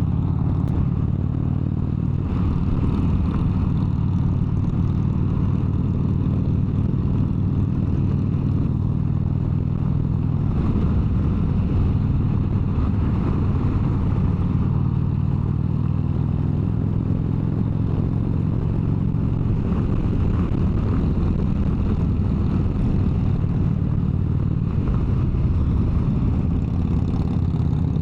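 Harley-Davidson V-twin motorcycle engine running steadily at highway cruising speed, a constant low drone with a hiss of wind and road noise over it.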